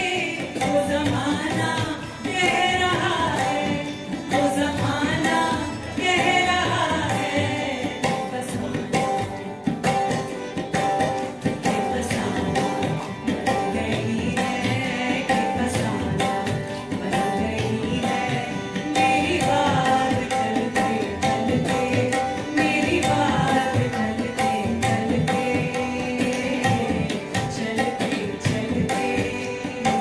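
Live Indian ensemble music: tabla drumming throughout, with harmonium and acoustic guitar. A voice sings over it in two stretches, one near the start and one just past the middle.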